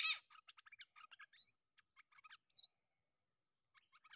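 Stripe-throated bulbul calling: a sudden harsh note at the start, then a quick run of short chirps and gliding whistled notes, a pause of about a second, and more chirps near the end.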